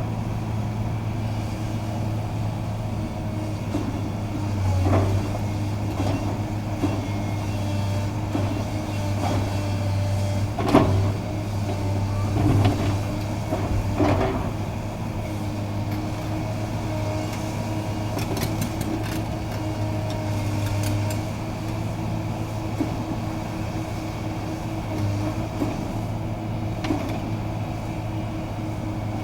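Heavy demolition machinery running steadily, its engine giving a low hum. Several loud crunches and clanks of breaking debris come between about five and fourteen seconds in.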